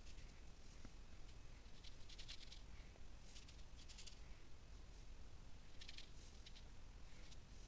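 Faint dabbing and scratching of an ink-loaded paintbrush on fabric, in short scratchy clusters every second or so.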